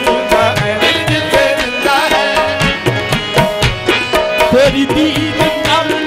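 Live qawwali music: tabla playing quick, steady strokes under harmoniums holding a steady chord, with a singer's voice wavering over them.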